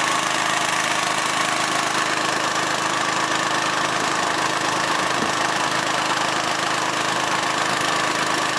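Small engine of a crop-spraying rig, an Agria 1900 two-wheel tractor with a Honda motor pump, running steadily at constant speed to pressurise the spray hose.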